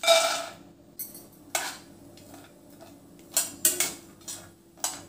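Raw peanuts poured into a metal kadhai with a little oil, landing with a loud ringing clatter, followed by a metal spatula knocking and scraping against the pan several times as the peanuts are stirred to roast.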